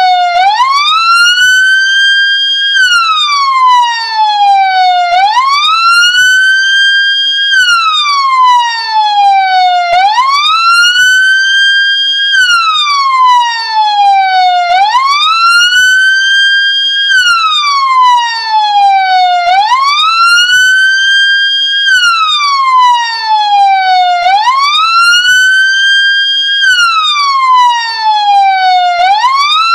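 Ambulance siren sounding in a slow wail. Each cycle the pitch rises, holds briefly at the top, then slides down, repeating about every five seconds.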